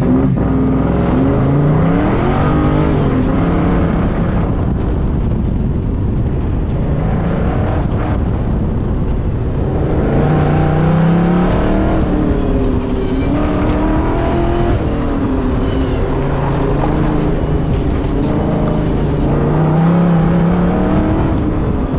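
Ford SN95 Mustang's engine on an autocross run, heard from inside the car, revving up hard and dropping back again and again as the car accelerates, lifts and brakes through the course.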